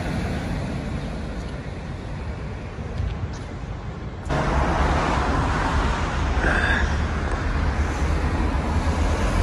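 Outdoor town-street ambience: a steady hum of road traffic with low rumble, getting louder and fuller about four seconds in.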